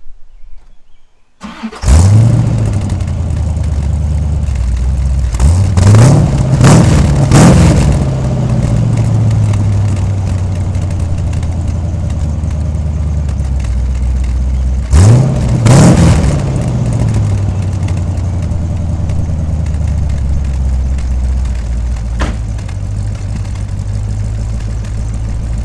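C4 Corvette V8 started through a new true-dual exhaust with Cherry Bomb mufflers and no catalytic converters. It catches about a second and a half in and is blipped three times in quick succession, then idles, is blipped twice more, and idles steadily. The engine runs fine with the cats removed.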